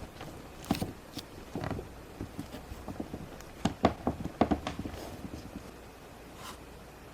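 Hands working Play-Doh and small plastic molding tools on a tabletop, making irregular soft taps, knocks and clicks. They cluster about four seconds in and thin out near the end.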